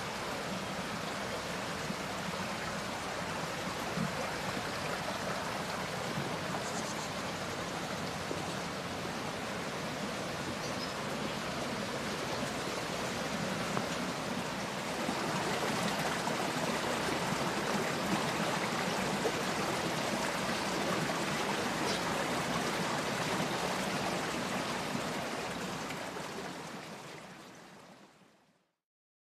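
Steady rush of flowing water, a little louder about halfway through, fading out smoothly near the end.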